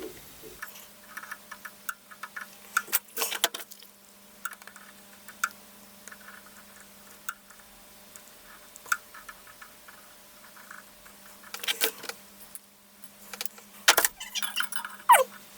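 Irregular small clicks, taps and light metallic rattling from tools and parts being handled at a workbench, over a steady faint low hum that starts about half a second in.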